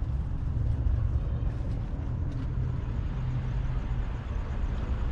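Low steady rumble of a Mercedes-Benz car with its engine running.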